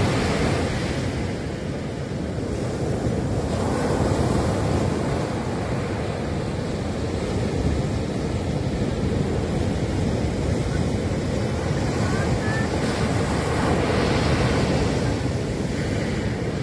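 Ocean surf breaking and washing up a sandy beach as a continuous rush. It swells louder as waves come in, about four seconds in and again near the end.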